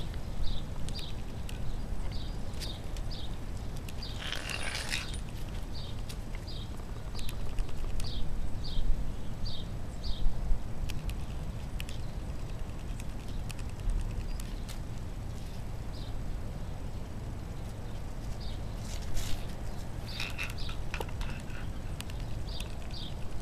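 A small bird repeating a short, high chirp about twice a second, over a steady low rumble with scattered faint clicks. A louder, longer burst of calls comes about four seconds in and again around twenty seconds in.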